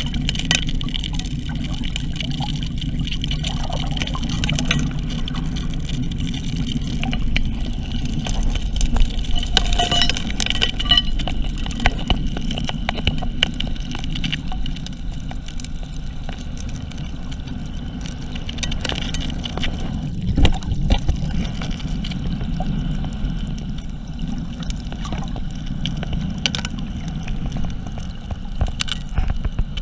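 Underwater sound of a Keene 4-inch gold dredge at work: a steady low rumble of the running dredge and water rushing into the suction nozzle, with frequent clicks and knocks of gravel and stones being sucked up. A louder knock comes about twenty seconds in.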